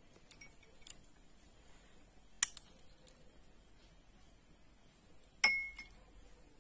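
A steel spoon clinking against glassware: two clear clinks about three seconds apart, the second louder with a short ring, and a few faint taps before them.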